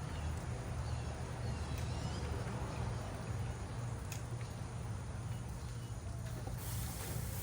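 Birds chirping faintly over a steady low hum.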